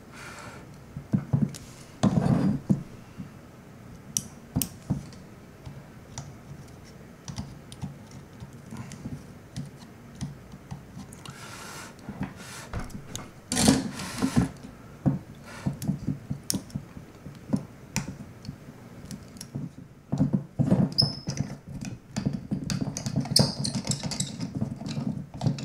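Scattered small clicks, taps and handling knocks from soldering work on a 1/4-inch TRS plug held in a helping-hands clamp: the soldering iron and the parts being handled. A busier run of handling noise comes near the end.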